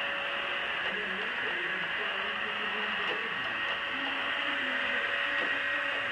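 PureClean robot vacuum running, a steady whir from its fan and brushes.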